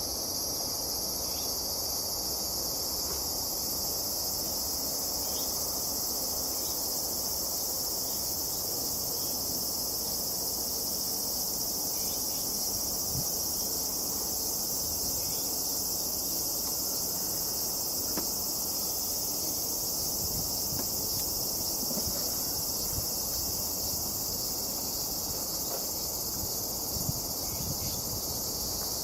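Steady chorus of insects singing, a continuous high-pitched shrill trilling that does not let up, over a faint low rumble of outdoor background noise.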